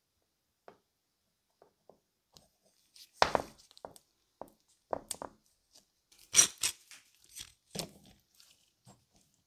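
Handling noises as a glued ebony knife handle is pressed together and a screw clamp is set against it on a wooden worktop: scattered light clicks and knocks, the loudest about three seconds in and about six and a half seconds in.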